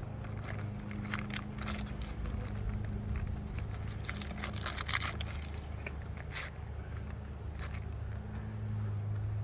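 Crinkling, tearing and scraping of a pollen patty's wrapper being opened by hand, in short irregular rustles that are busiest around the middle. A steady low hum runs underneath.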